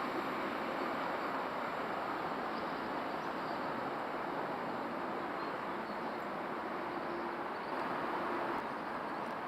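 A train running on the rails: a steady, even rolling noise with a faint steady tone in it, and no separate clicks or knocks.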